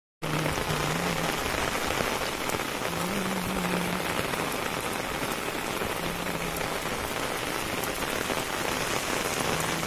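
Steady rain falling on a concrete lane and the surrounding fields and crops, an even, unbroken hiss of many drops.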